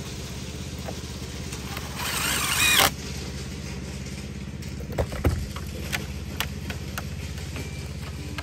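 A power drill runs once for under a second, with a rising whine, about two seconds in. A few sharp knocks follow a little later. A steady low mechanical hum runs underneath throughout.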